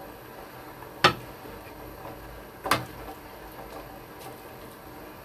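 Metal serving utensils clinking against the soup pot and serving bowl while beef rib soup is dished out: two sharp clinks about a second and a half apart.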